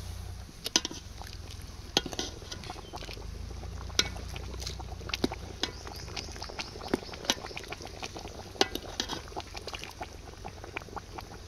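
A metal utensil clinking and scraping against a pot or dish in irregular clicks and knocks, as when stirring or serving pork curry.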